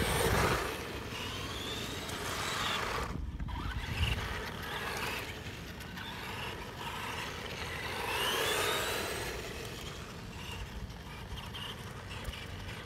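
Small brushed 390 electric motor and gear drive of a 1/12-scale RC monster truck whining as it runs, its pitch rising and falling twice as the throttle is worked, over a steady rush of tyres on concrete.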